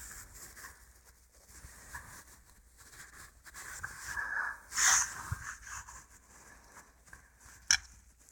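Small scraping and handling noises of hands working the drain valve under a compressor tank. A short hissy burst, the loudest thing, comes about five seconds in, and a single sharp click comes near the end.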